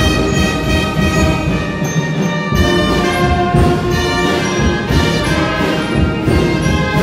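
Brass band of trumpets, trombones and sousaphones with timpani playing a Guatemalan son, full and loud throughout, with a brief thinning of the bass about two seconds in.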